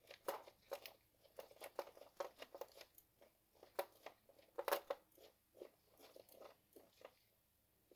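Faint, irregular light clicks and rattles of hand tools and small parts being handled while a fastener is worked on.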